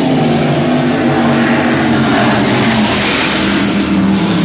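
Offshore racing powerboats running flat out close by: a loud, steady engine drone over the rush of hull and spray. The engine note falls slightly in pitch as a boat goes past.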